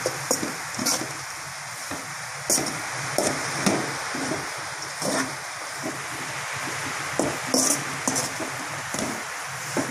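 Soya chunks and masala frying in a metal pan while being stirred with a spatula: a steady sizzle with irregular knocks and scrapes of the spatula against the pan, roughly one a second.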